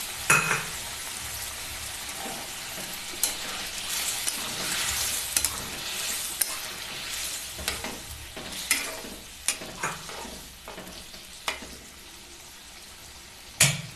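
Paneer and chickpea curry sizzling in a metal kadhai while a spatula stirs it, with scattered knocks and scrapes of the spatula against the pan. The sizzle eases off in the second half.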